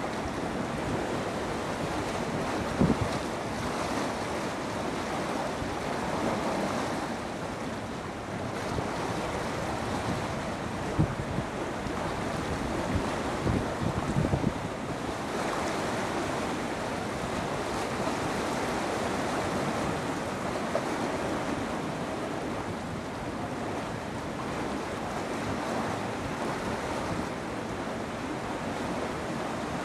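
Long freight train of open wagons rolling past at a distance: a steady rumble of wheels on rails, with a few short sharp clanks, the loudest a little before the middle.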